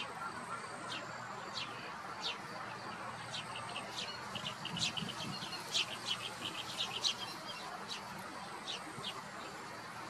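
Small birds chirping in the background: many short, high chirps scattered through, thickest around the middle, with a few brief thin whistles, over a steady hiss of outdoor background noise.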